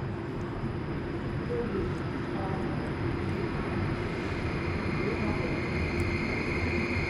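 Incheon Airport maglev train approaching the platform: a steady rumbling noise that slowly grows louder, with a high whine coming in about five seconds in.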